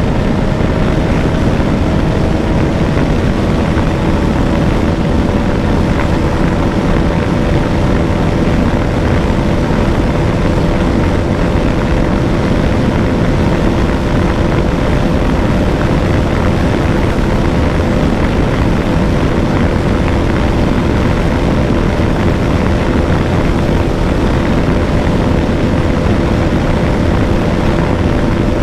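Bajaj Dominar 250's single-cylinder engine running hard at high speed in fifth gear, a steady high engine note under a heavy rush of wind noise, as the bike accelerates toward its top speed.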